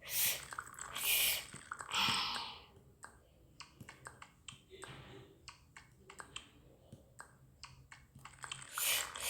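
Three short rustling bursts in the first two seconds or so, then many small, irregular clicks and taps.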